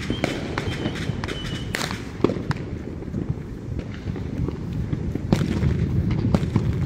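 Fireworks going off: sharp cracks and pops at irregular intervals over a low rumble, with a steady high whistle during the first couple of seconds.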